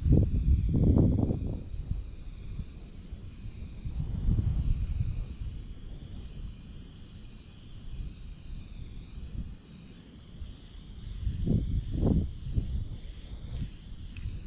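Aerosol can of black enamel spray paint hissing steadily as a first light coat goes onto steel mounting plates. Gusts of wind rumble on the microphone, the loudest near the start and again about 4 and 12 seconds in.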